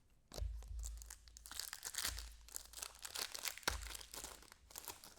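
Foil wrapper of a trading-card pack being torn open and crinkled by hand: a run of dense crackling and tearing with sharp crinkles.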